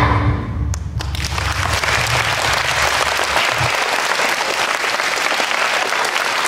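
An audience of schoolchildren applauding, the clapping building about a second in as the last of the choir's singing dies away.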